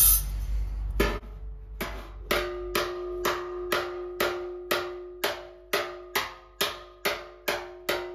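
Slapper made from an old file striking a steel classic Mini wing with a dolly held behind it: light, even slaps about two a second, each leaving the panel ringing with a steady tone, to bring a high spot down. A short clatter comes right at the start, then a single slap before the steady run begins.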